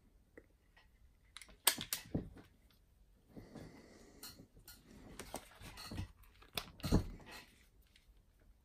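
Heavy steel machine-tool parts of a Schaublin 70 turret carriage being handled: a few sharp metal clicks and knocks, then a stretch of rustling with scattered clunks, and one loud knock about seven seconds in.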